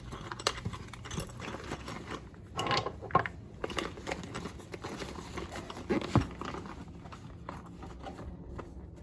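Small hand tools and accessories being stuffed back into a fabric tool-bag pouch: scattered clicks, knocks and fabric rustling, with sharper knocks about three and six seconds in.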